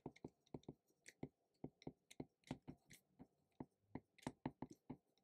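Stylus tip tapping and ticking on a tablet screen while writing by hand: a faint, irregular run of short clicks, a few each second.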